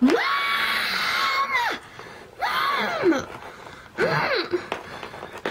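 A high-pitched voice screaming one long held note, then two shorter cries that fall in pitch.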